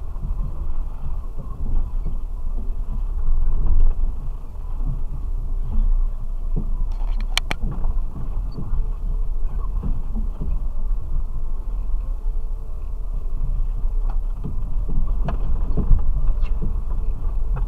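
Off-road vehicle's engine running at low speed, heard from inside the cabin as a steady low rumble, with the body knocking and rattling over the rutted track. Two sharp clicks sound about seven seconds in.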